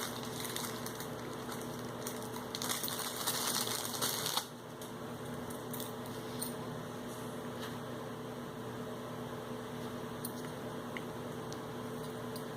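Thin plastic poly bag crinkling as it is handled, for about the first four seconds. After that a steady low hum, with a few faint clicks.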